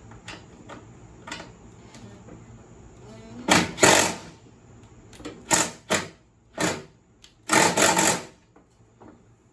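Cordless power driver run in about six short bursts, fastening the belt guard's bolts on a mower deck, after a few light clicks of handling metal parts.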